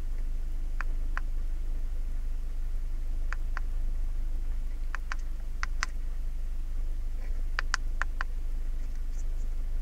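Buttons of a handheld MaxiScan MS309 OBD-II code reader clicking as it is scrolled through its readiness screens and menus: about a dozen short, sharp clicks, mostly in pairs, over a steady low hum.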